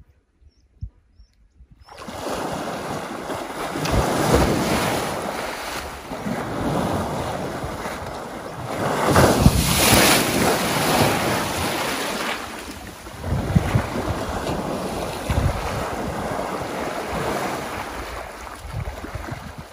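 Heavy water splashing and churning from an African elephant plunging and surging through the river close by; it starts suddenly about two seconds in. It is loudest around the middle, where a sheet of spray hits the microphone.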